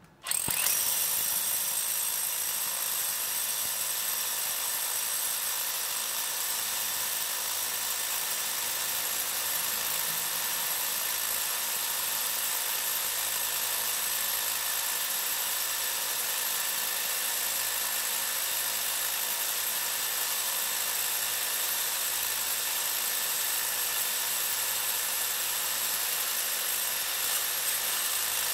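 1500 W TOTAL TH115326 rotary hammer drilling into concrete in hammer-drill mode. It starts suddenly about half a second in and runs at a steady, even level with a high whine over the hammering.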